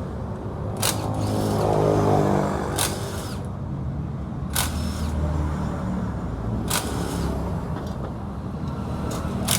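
Yamaha Exciter 135's single-cylinder engine running, revved briefly about a second in and then settling back. A sharp click sounds about every two seconds over the engine.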